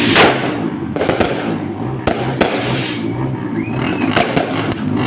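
Fireworks exploding at a display: several sharp bangs a second or so apart over a steady rumble of further bursts.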